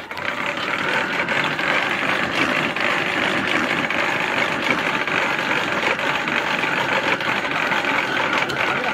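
A homemade curved dog treadmill rattling steadily as a Labrador trots on it: a dense run of small clicks as the wooden slats travel over the end wheels, mixed with the dog's footfalls on the boards.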